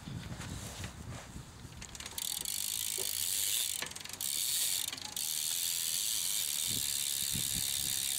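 Odyssey Hazard Lite BMX rear hub buzzing with rapid freewheel ratchet clicks as the back wheel spins. The buzz starts about two seconds in and breaks off briefly twice.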